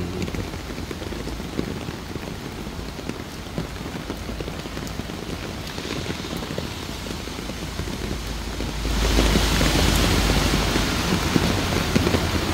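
Heavy typhoon rain falling steadily onto floodwater, its hiss growing louder about nine seconds in.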